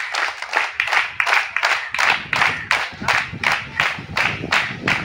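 A group of schoolchildren clapping in unison at a steady beat, about three to four claps a second.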